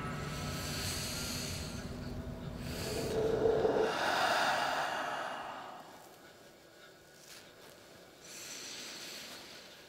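A man's heavy breathing: a few long, noisy breaths, the loudest about four seconds in and another near the end. Under the first few seconds a low drone fades out.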